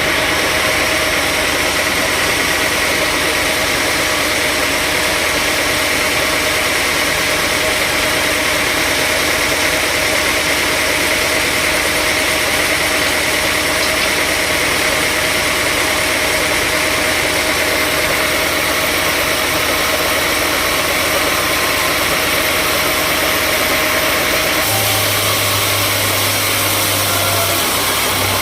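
Sawmill machinery running steadily: a continuous engine-like drone with a high whine, its tone changing near the end.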